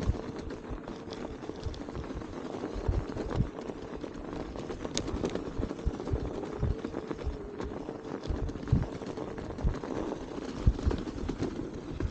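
Thron electric bike ridden through snow: a steady hum under irregular crunching and knocking of the tyres and frame over the uneven snowy path.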